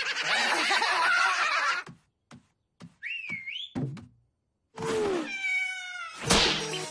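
Cartoon sound effects: a dense rush of noise for about two seconds, then near quiet with a few light taps and a short wavering whistle about three seconds in, then a falling whistle-like glide and a brief swish near the end.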